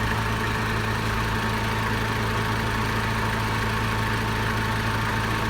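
Nissan 3-ton forklift engine idling steadily with an even, unchanging hum.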